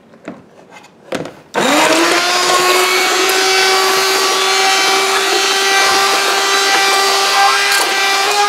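Hand-held immersion blender switched on about a second and a half in, its motor spinning up quickly to a steady whine as the blade purees thick cooked-down tomato jam to get rid of the chunks. A couple of light knocks come just before it starts.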